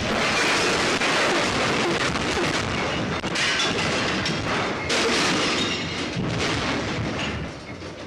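A furnished room mock-up being shaken on an earthquake shake table: a loud rumbling and rattling with many crashes as shelf contents, a wall picture and furniture fall. It starts suddenly and eases off near the end.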